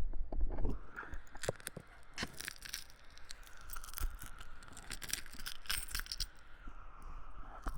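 Close-up scratchy crackling and irregular clicking, as of something rubbing or handled right against the microphone, with a faint steady whine underneath; no heartbeat is heard.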